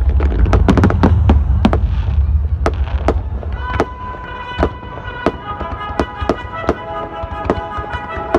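Fireworks going off: a rapid run of sharp cracks and bangs over a low rumble, thinning out about halfway through to single pops spaced under a second apart. From about halfway, music with held notes comes in under the pops.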